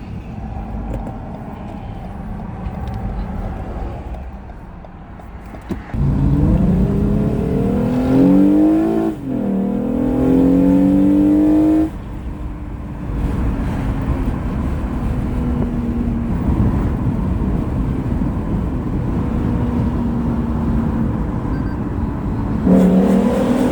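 Lexus GS350 F Sport's 3.5-litre V6 through a newly fitted active valved exhaust in Sport Plus mode. It runs quietly at first; about six seconds in it opens up under hard acceleration, revs climbing through two gears with a brief dip at the upshift, then cuts off sharply when the throttle is lifted. It settles back to steady running and starts another rising pull just before the end.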